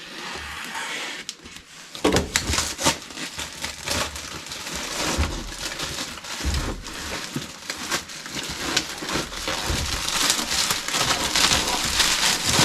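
Packaging being opened and handled: steady crinkling and rustling with many small clicks and knocks. It is faint for about two seconds, then gets busier and louder.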